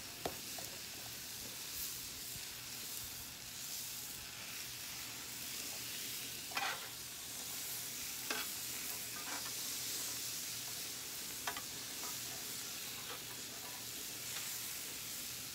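Steaks, fried rice and vegetables sizzling on a hot flat-top griddle, a steady hiss. Now and then metal spatulas scrape and click against the griddle surface as the food is turned and moved.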